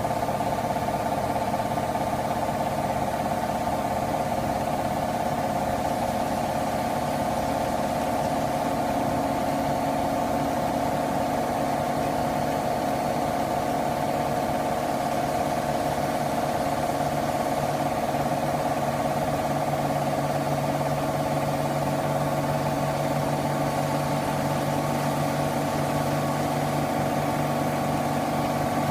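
Washing machine on its spin cycle: a steady motor hum and whir with no let-up, a lower hum growing stronger about two-thirds of the way through.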